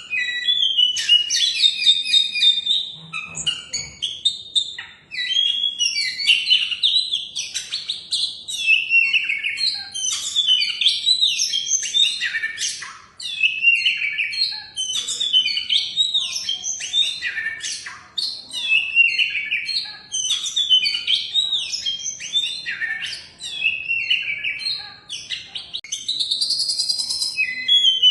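Oriental magpie-robin (kacer) singing a rapid, varied stream of whistles and chirps, with short pauses about four and thirteen seconds in.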